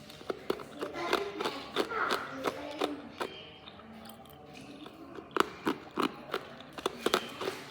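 Hard ice being bitten and chewed close to the microphone: an irregular string of sharp crunches and cracks, thinning out midway and then coming back loud about five seconds in.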